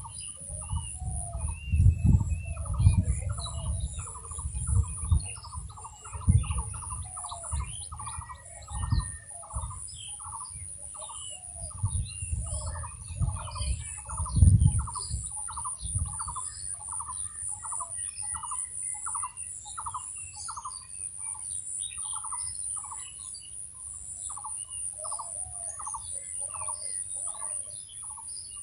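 A bird repeating the same short chirping note over and over, about two to three times a second, over a steady high-pitched whine. Low thumps and rumbles come and go in the first half.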